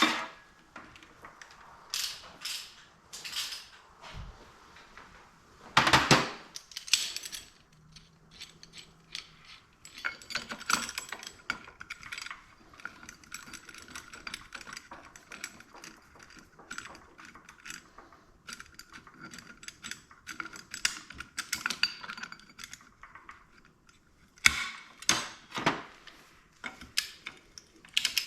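Hand tools working on the clutch basket nut of a Yamaha YZ125: separate metal clanks and knocks, and a long run of rapid ratchet clicking as the nut is run down ahead of torquing it to 58 ft-lb.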